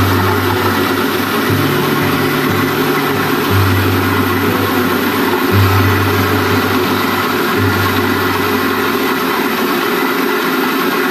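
Small electric rice milling machine running steadily while paddy rice feeds through it, a dense mechanical rush of motor and grain, with a low hum that swells and drops every couple of seconds.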